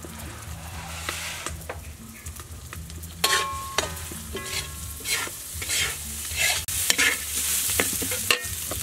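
Metal spatula scraping and stirring rice grains in a hot steel wok, the rice sizzling as it fries. Sharp scrapes with short metallic rings come thick and fast from about three seconds in.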